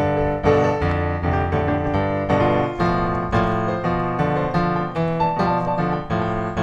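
Background piano music, a steady run of struck notes with chords underneath.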